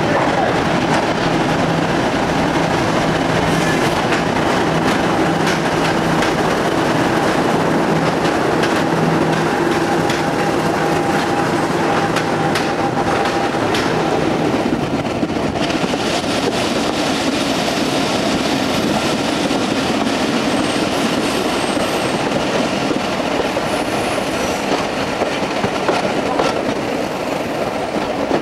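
Train running along the track, a steady loud rail noise that goes on throughout, with a shift in tone about halfway through. The train is a railtour hauled by Class 50 diesel locomotives.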